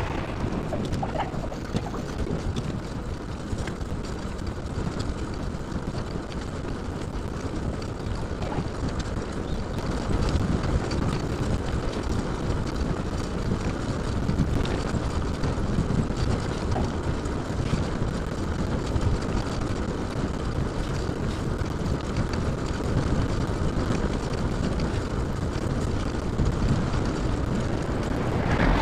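Steady low rumble of wind buffeting the microphone as the camera moves along, a little louder from about ten seconds in.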